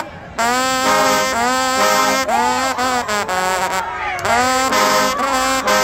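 Marching band trombone section playing a loud riff of short notes that scoop and slide in pitch, after a brief break about a third of a second long at the start.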